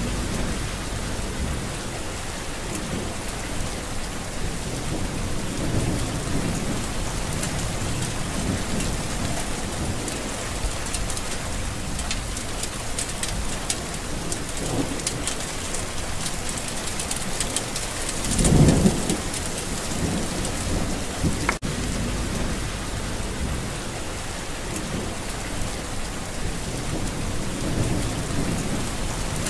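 Steady heavy rain falling in a windy storm, an even hiss with no let-up. About two-thirds of the way through, a short, louder low rumble swells and fades.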